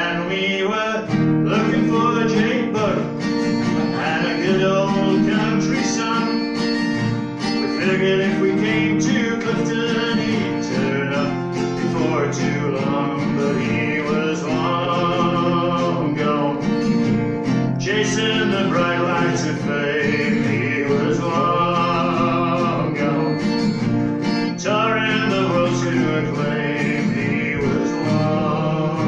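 A man singing a folk song, accompanying himself on an acoustic guitar.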